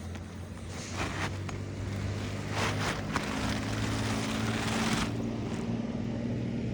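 Steady low hum of a vehicle engine running, with bursts of rough scraping noise between about one and five seconds in.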